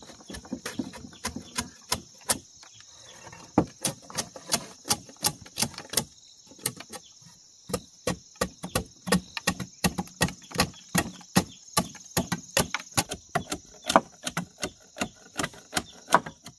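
A rapid series of sharp clicks or snaps, about three to four a second with a brief pause near the middle, from handwork such as cutting or snapping. Behind it is a steady high insect drone.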